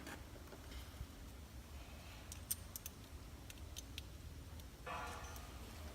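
Faint, scattered light clicks and clinks of hand tools and engine parts being handled while the fuel rail and intake of an Audi 2.7T engine are reassembled.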